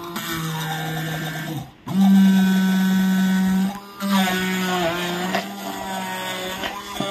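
Handheld stick blender motor running while blending carrot and pear juice in a plastic cup, with a steady whine. It cuts out briefly about two seconds in and again near four seconds, coming back louder and higher after the first stop.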